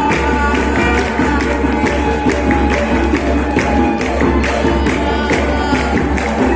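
Music with a steady percussive beat and voices singing.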